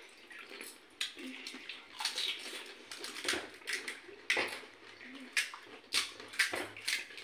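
Crisp gupuchup (pani puri) shells cracking and crunching, with wet splashing and slurping as they are dipped in spiced water and eaten. The sharp crunches come irregularly, about one or two a second.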